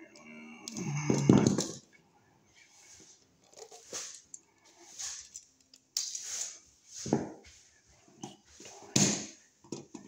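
Wires and a wall receptacle being pushed by hand into a metal electrical box: scattered scrapes, rustles and clicks, with one louder, longer scraping sound about a second in.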